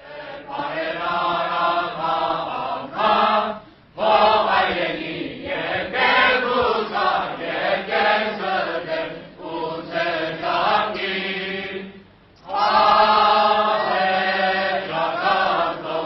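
The Armenian college's choir singing together in sustained phrases, with short breaks about four seconds in and again near twelve seconds.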